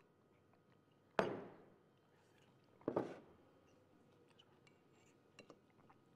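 Ceramic mugs being set down on a table: one sharp knock with a short ring about a second in, a second knock near three seconds, then light spoon clinks against a mug near the end.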